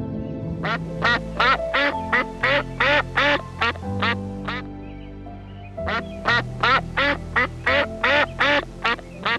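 A duck quacking in two quick runs of about a dozen quacks each, roughly three a second, with a short pause between them, over soft piano music.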